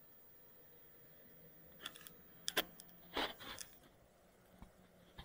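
Near silence, broken by a few faint short clicks and rustles around the middle.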